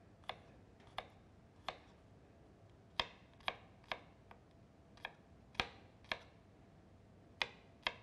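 Kitchen knife chopping garlic on a cutting board: about a dozen sharp knocks at an unhurried, uneven pace.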